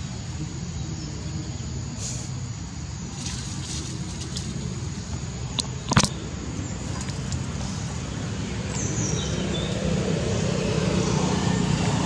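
Steady low engine rumble of a road vehicle, growing louder over the last few seconds as it comes closer. A single sharp click about halfway through, and a short falling bird chirp near the end.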